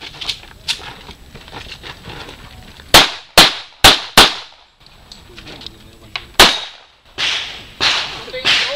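Pistol shots: four loud shots in quick succession about three seconds in and a fifth about two seconds later, with fainter cracks early on. Softer rushing bursts come near the end.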